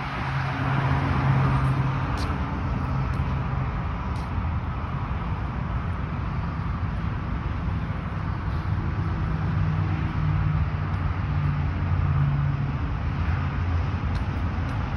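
A car moving slowly: a steady low engine hum that shifts a little in pitch, with road noise over it.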